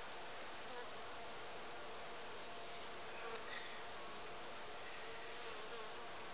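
Honey bee colony humming steadily from an open hive, many bees buzzing together.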